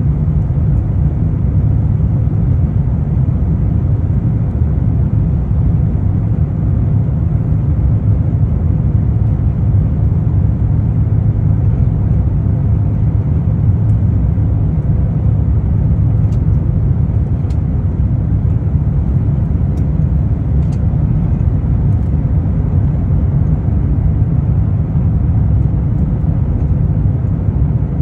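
Airliner cabin noise in flight: a steady low rumble of the jet engines and airflow, without change.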